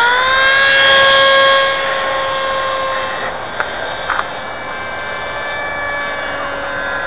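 Electric motor whine of a homemade foam F-22 Raptor radio-controlled plane in flight. It rises slightly in pitch at first, then holds a steady tone while slowly fading as the plane flies off, with a couple of short clicks about halfway through.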